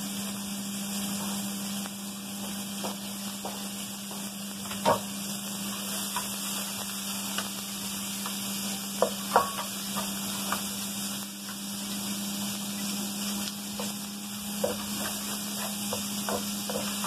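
Bacon and onions sizzling in a nonstick pan, stirred with a utensil that knocks and scrapes against the pan now and then, most sharply about five and nine seconds in. A steady low hum runs underneath.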